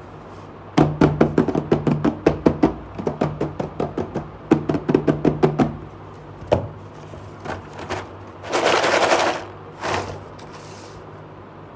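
Rapid tapping on a cardboard box, about five taps a second in three runs, then a sliding, rustling scrape twice near the end as the box is opened and the packaging inside is handled.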